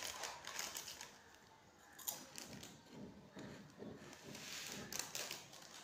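Faint handling noise close to the microphone: scattered small clicks and rustles.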